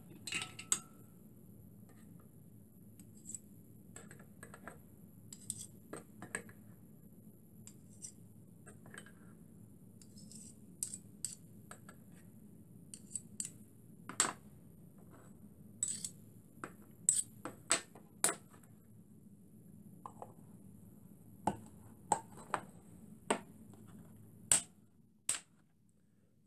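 Scattered light metallic clicks, taps and scrapes from small sheet-metal fuel pans of jellied fuel being handled and slid into place under small boilers, with a knife blade knocking against them, over a faint steady hum.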